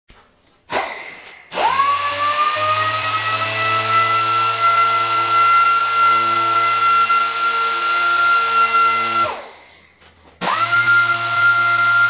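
Pneumatic palm sander with 180-grit paper sanding curb rash off the aluminum lip of an alloy wheel. After a short blip, it spins up to a steady high whine, runs for about eight seconds, winds down and stops, then spins up again about a second later.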